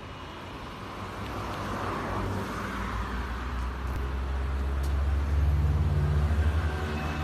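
A car engine running with a low hum that grows steadily louder, peaking a little before the end.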